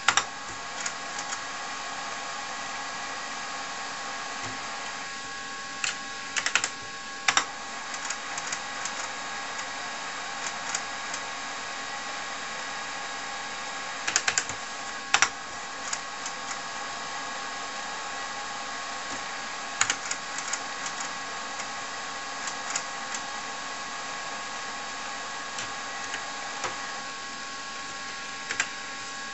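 Steady whirring hum of a running TRS-80 Model 4 computer, broken by a few short clusters of keyboard key clicks as menu keys are pressed.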